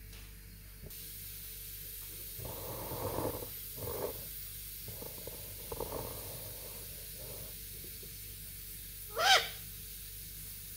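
Pet parrot making low, rough, scratchy sounds, then one short, sharp call about nine seconds in that bends in pitch and is the loudest sound.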